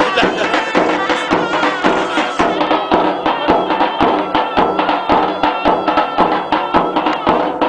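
Traditional folk dance music: a drum beating a steady rhythm under a sustained, reedy wind-instrument melody, played for a line dance.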